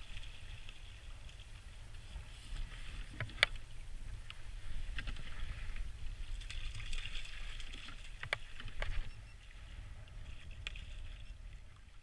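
Water sloshing and splashing around a paddled kayak, over a steady low wind rumble on the microphone. Sharp clicks come in two pairs, a little over a quarter and about two-thirds of the way through.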